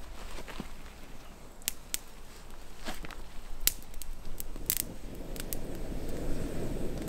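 Dry grass tinder nest crackling with sharp snaps as it catches fire. A rushing, breathy noise swells over the last two seconds.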